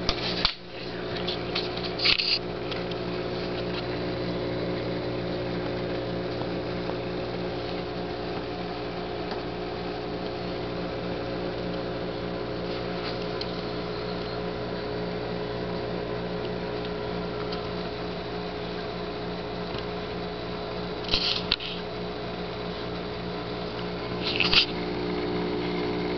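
Steady mechanical hum of several constant pitches, with a few brief clicks or knocks: one at the start, one about two seconds in, and two near the end.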